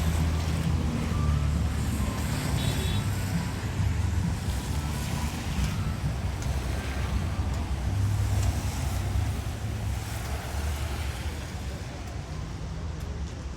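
Car engines running with a steady low rumble, mixed with road noise.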